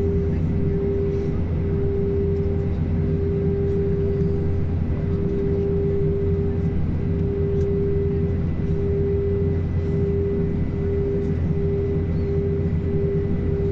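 Airbus A320 cabin noise on the ground with the engines at idle: a steady low rumble under a steady mid-pitched hum that wavers in loudness about once a second.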